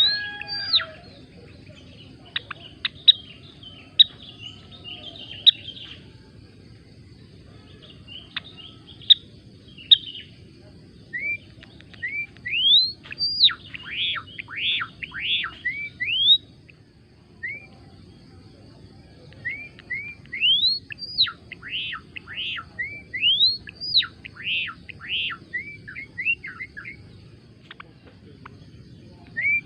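Gelatik belong singing: bursts of quick, sharply sweeping high notes repeated in phrases, with short pauses between phrases.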